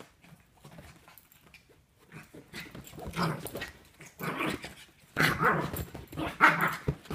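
Small dog growling and barking in play as it tugs at a blanket. The sound comes in rough bursts that start about two seconds in and grow louder toward the end.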